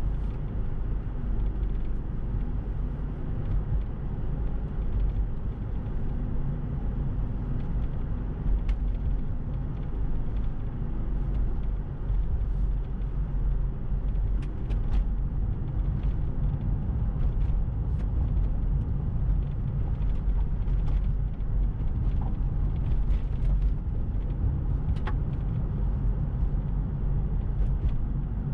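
Car driving at about 45 km/h on a snow-packed road: a steady low rumble of tyres and engine, with faint scattered ticks.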